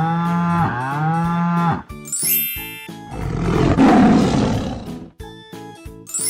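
Upbeat background music with layered sound effects. Over the first two seconds a pitched call rises twice. A rising sparkly sweep follows, then a loud roar about three seconds in that lasts around two seconds.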